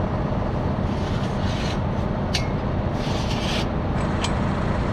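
Tractor engine idling steadily. Over it come a few short scrapes and a click as the steel support stand of a Pöttinger implement is pulled up through its tight guide, where it tends to jam.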